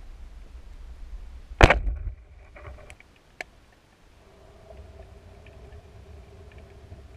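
Underwater speargun firing: one loud, sharp shot about one and a half seconds in, with a short ringing decay. A few faint clicks follow, and a faint steady low hum runs through the last few seconds.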